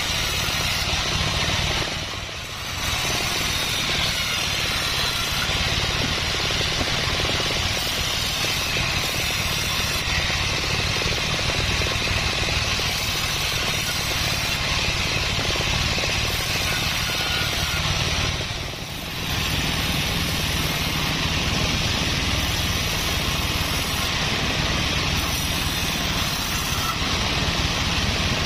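Large 36-inch sawmill band saw running steadily and ripping Sonokeling (Indian rosewood) timber, with two brief dips in the noise, about two seconds in and about nineteen seconds in.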